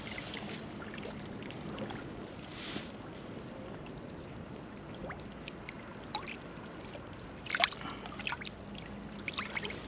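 Sea water lapping and trickling over shoreline rocks, with a quick cluster of sharp clicks and splashy knocks about three-quarters of the way through.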